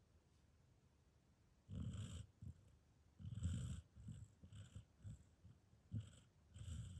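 Sleeping border collie snoring: after a quiet second and a half, rumbling snores come in uneven breaths, two longer ones followed by several short, sharper snorts.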